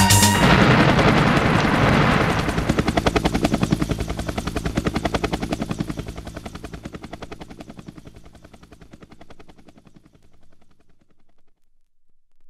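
Closing effect of a 1992 techno track: the full music drops out just after the start, leaving a fast, even chopping pulse of about five beats a second over a low drone. It fades away over about ten seconds.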